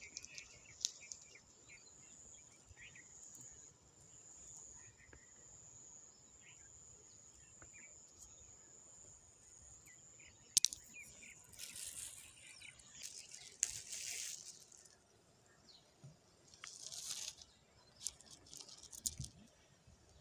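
River pebbles and gravel crunching and clacking as a hand picks up and handles stones, in several short bursts in the second half, starting with a sharp click. Before that, a faint steady high insect buzz.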